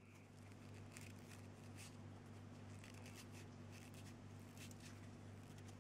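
Near silence: a steady low electrical hum and hiss picked up by a cheap mini microphone plugged into a computer, with a few faint soft clicks.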